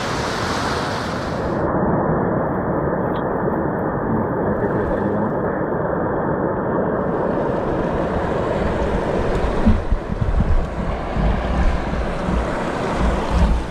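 Steady rush of a mountain stream's flowing water. From about ten seconds in, uneven low buffeting of wind on the microphone joins it.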